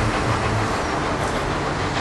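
Peppercorn A1 Pacific steam locomotive 60163 Tornado working towards the camera at a distance, heard as a steady noise with no clear exhaust beat.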